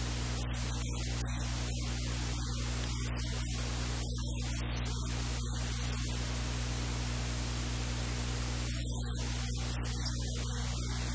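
Steady electrical mains hum with a constant hiss of static.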